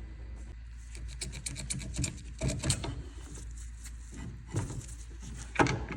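Hand tools at work on a car's front suspension arm: a run of quick light metallic clicks and taps, then a few separate knocks.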